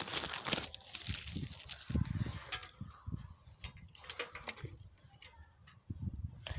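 Small fire of paper, dry grass and twigs crackling in a grill, with scattered sharp snaps and repeated low thumps.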